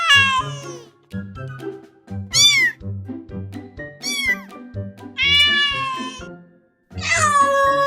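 Domestic cat meowing repeatedly: about five meows, a couple of short arched ones and longer drawn-out ones, the last starting near the end and still going. Background music plays underneath throughout.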